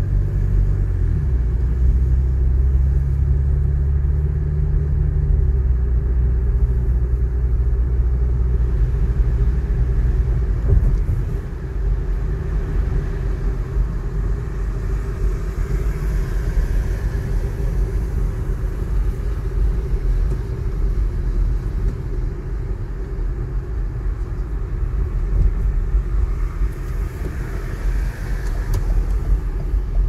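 Car driving, heard from inside the cabin: a steady low rumble of engine and tyres on the road. A low humming drone is strongest for the first ten seconds or so and then gives way to a rougher road rumble.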